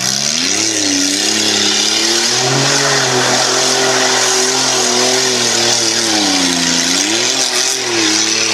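SUV engine revving hard under full throttle: its pitch climbs in the first second, holds high, dips about seven seconds in and climbs again near the end, over a steady hiss.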